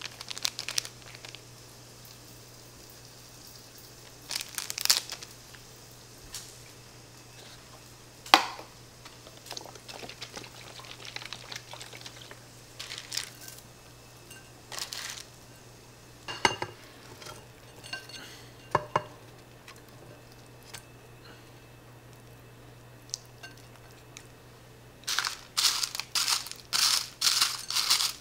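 Plastic food packets and a plastic container crinkling and light knocks against a ceramic bowl as toppings are shaken onto a bowl of rice, in scattered short bursts, with a dense run of quick crinkling near the end. A low steady hum underneath.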